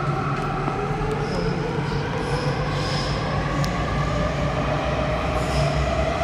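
Putrajaya Line MRT train accelerating out of the station: its traction motors whine with a pitch that rises slowly over a steady low hum, and the wheels give several short, high squeals.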